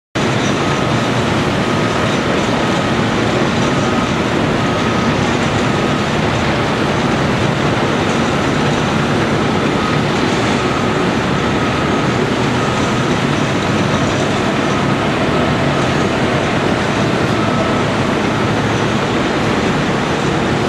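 Caterpillar 345C L excavator's diesel engine and hydraulics running steadily and loudly under working load, with faint repeated beeping, typical of a machine alarm, about once a second.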